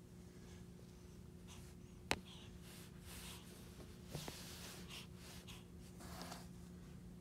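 Quiet room with a steady low hum, a single sharp click about two seconds in and a smaller one about four seconds in, and soft rustling from the phone being handled.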